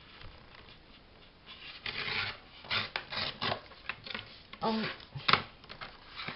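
Printed paper being torn and handled: a run of short rasping rips and rustles that starts about a second and a half in.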